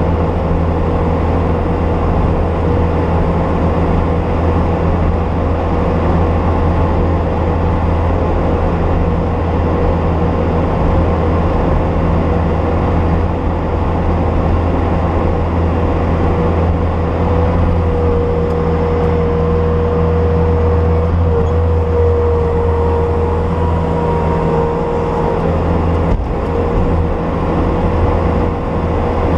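Bobcat S250 skid steer's diesel engine running steadily, with a constant high whine on top that rises a little in pitch past the middle.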